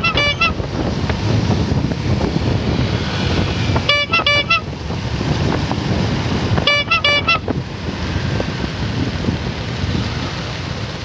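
A vehicle horn tooting in three bursts of quick, high beeps, one at the start, one about four seconds in and one about seven seconds in, over the steady noise of a motorcycle engine, traffic and wind.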